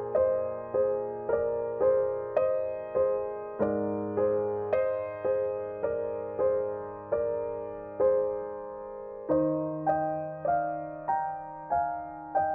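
Background piano music: a slow, gentle line of single notes struck about twice a second, each fading, over low held notes that change about four seconds in and again about nine seconds in.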